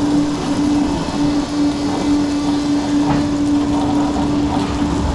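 Spinning amusement ride's machinery running with a steady, even hum over a constant rushing noise.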